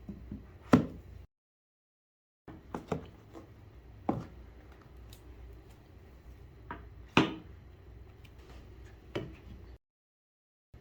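Scattered sharp taps and knocks from objects being handled and set down, over a faint room hum, with the sound cutting to dead silence twice.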